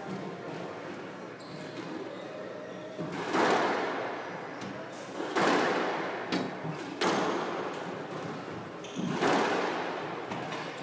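A squash rally: sharp smacks of the ball off rackets and walls about every two seconds, with softer knocks between, each ringing on in the court's echo.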